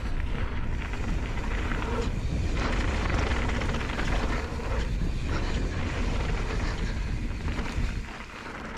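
Wind buffeting the microphone with a steady low rumble, over mountain-bike tyres rolling and crunching on loose slate gravel during a fast downhill run. It eases slightly near the end.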